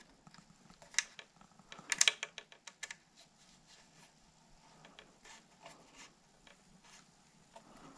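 Light, irregular clicks and ticks of a hex key turning a small screw into a cable-port cover on a carbon bicycle frame, with a quick cluster of clicks about two seconds in.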